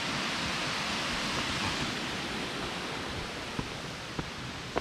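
Steady rush of flowing creek water, easing slightly over the last second or two, with a few light knocks near the end.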